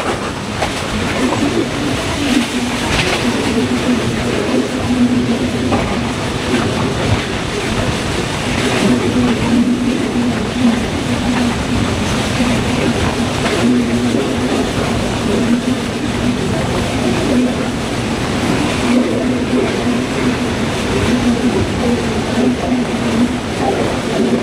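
Broad-gauge passenger train running at speed, heard from an open carriage window: a steady rumble of the wheels on the rails with a low hum underneath.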